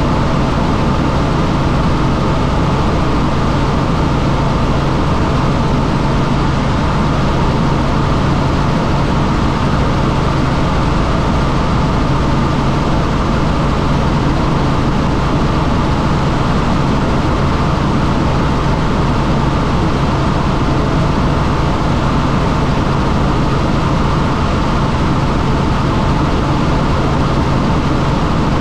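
Helicopter in flight: loud, unchanging engine and rotor noise with a steady low hum.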